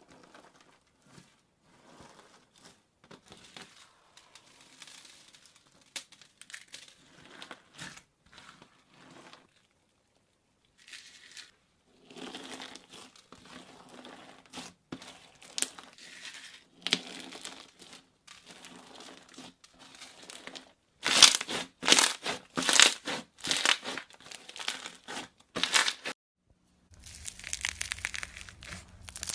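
Slime being squeezed, stretched and poked by hand, giving runs of sticky crackles, clicks and small pops. There are short silent gaps between runs, and the crackling turns much louder and sharper in the last third.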